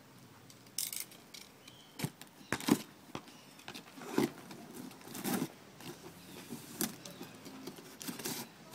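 Cardboard shipping box and packaging being handled and opened: scattered rustling and scraping, with a few sharp knocks.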